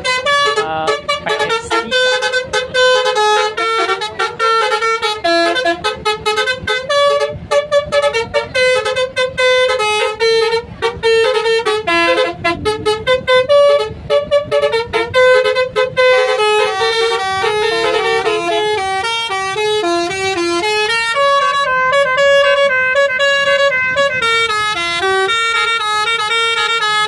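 Tour bus 'telolet basuri' musical horn playing a fast melody. It is a long, loud string of stepping pitched notes, choppy at first and more held and connected from about halfway through.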